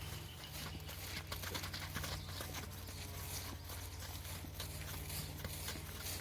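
Horse's hooves clip-clopping in a quick, irregular run of strikes, over a steady low hum.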